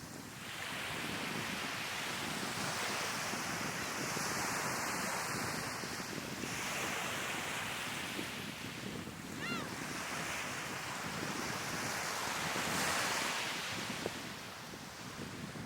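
Sea waves washing onto the shore in repeated surges, with wind on the microphone. About nine and a half seconds in, a seagull gives a short call.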